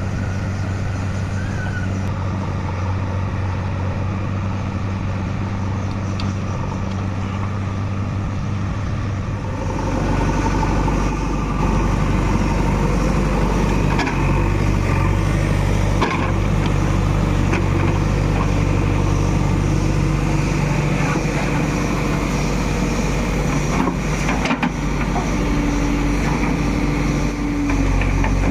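Diesel engine of a JCB 3DX Eco backhoe loader running steadily, then revving up about a third of the way in as it works under hydraulic load, with a few brief knocks.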